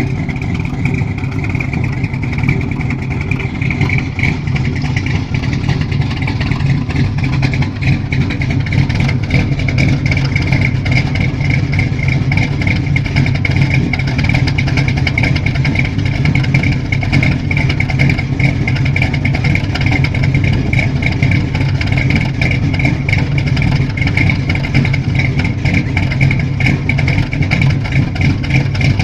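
Chevrolet 454 big-block V8 engine running steadily, with no revving, giving a deep low sound and a steady high whine above it.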